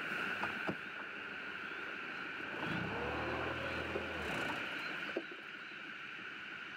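Small outboard motor on a dinghy running at low speed, revving up and back down for about a second and a half near the middle, over a steady high drone.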